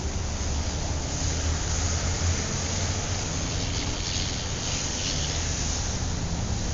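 Steady rumbling background noise, a low rumble under a hiss, with the hiss a little stronger about four to five seconds in.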